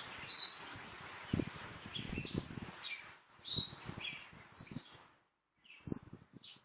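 Small birds chirping and twittering in quick, short high notes, several calls overlapping, over a hissy background with scattered low thumps. The sound cuts out about five seconds in, then a last few chirps come near the end.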